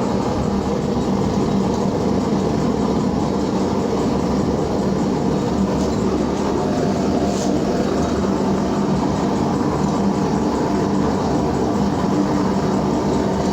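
Gold and silver melting furnace running: a loud, steady roar with a low hum underneath.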